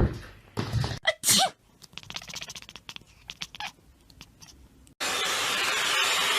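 A cat sneezes, one short sharp burst about a second in, after some faint clicks. After a sudden cut near the end, a loud steady rushing noise takes over.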